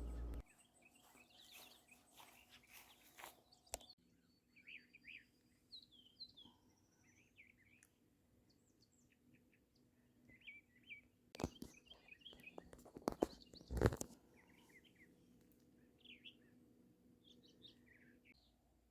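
Faint birdsong: scattered short chirps and calls, one a rising whistle. There is a single sharp knock about a fifth of the way in, and a cluster of louder knocks past the middle.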